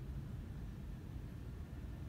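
Low, steady rumble of wind buffeting the microphone.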